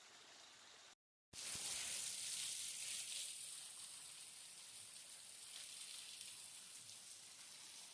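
Steady rush of water falling over a creek waterfall. It is faint at first and cuts out briefly about a second in, then comes back louder, easing off a little a couple of seconds later.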